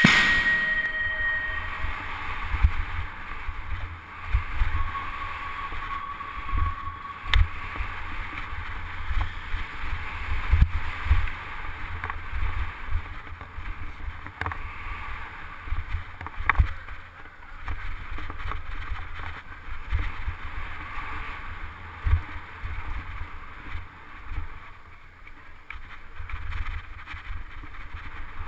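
Helmet- or bike-mounted action camera riding a BMX bike around a dirt track: wind rushing over the microphone, tyres rolling on packed dirt, and irregular low thumps and a few sharp knocks as the bike goes over the rollers and jumps. A single high tone dies away in the first two seconds.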